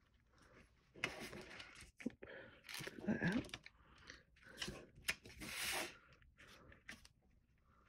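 Cardstock rustling and scraping as hands slide, turn and press a folded card on a cutting mat, in several short, irregular bursts.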